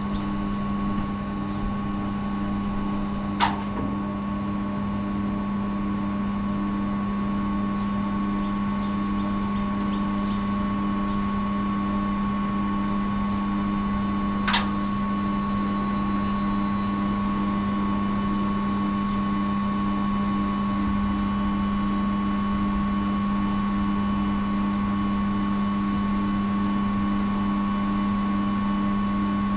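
Steady electrical machine hum with a faint pulsing tone, broken by two sharp clicks, about three and a half and fourteen and a half seconds in.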